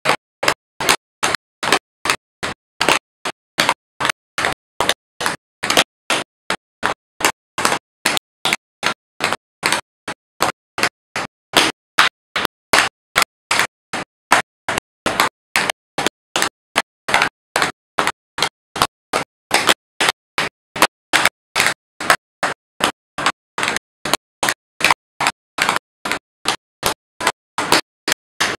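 Tap shoes striking a dance board: a long run of sharp taps, about three to four a second, in a mostly even rhythm.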